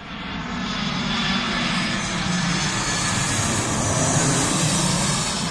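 Airbus A319-100 airliner passing low with its landing gear down, coming in to land. Its twin jet engines make a loud, steady noise with a deep rumble and a high hiss, which builds over the first second.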